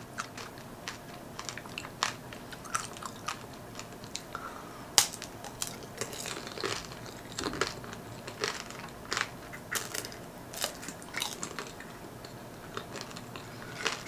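Close-up crunching and chewing of strawberry tanghulu, the hard sugar glaze cracking between the teeth in irregular sharp crunches, the loudest about five seconds in.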